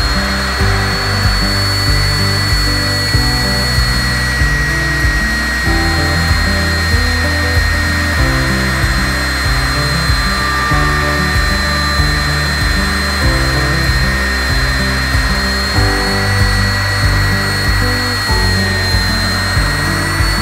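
Handheld electric belt sander running steadily with a high, even whine as it sands the edge of a curved hardwood rocker, with background music that has a steady beat.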